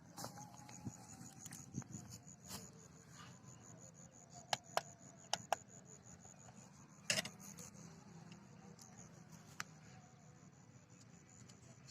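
Faint sharp clicks and taps over a quiet steady background, with a quick run of clicks about four to five and a half seconds in and a louder one about seven seconds in.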